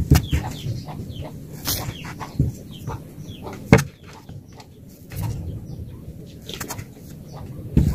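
Metal tumbler knocking onto a wooden board as it cuts circles out of pancake dough, several sharp knocks at uneven intervals. Birds chirp in the background.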